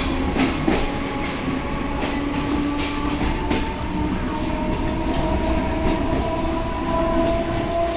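EMU electric suburban train running, heard from aboard: a steady rumble with wheel clicks over rail joints in the first few seconds and a held whine through it.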